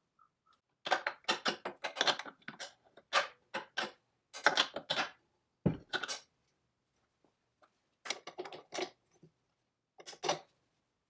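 Quick runs of small metallic clicks and clinks from a hand tool and steel fasteners being worked on a chainsaw's bucking spike and bolts, coming in several separate bursts with short quiet gaps between.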